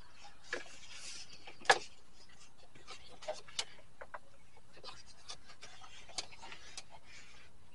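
Hand work on a pickup's door parts: scattered light clicks and rubbing, with one sharp click a little under two seconds in.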